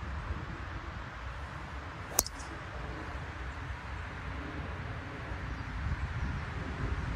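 A golf club striking the ball once, a sharp click with a brief ringing about two seconds in. Wind rumbles on the microphone throughout.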